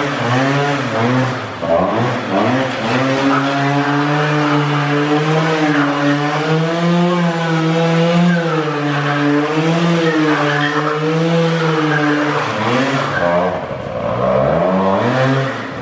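Small two-stroke moped scooter engine revving hard, its pitch wavering up and down as the throttle is worked while the rear wheel spins on concrete in burnouts and slides. The revs dip briefly near the end, then climb again.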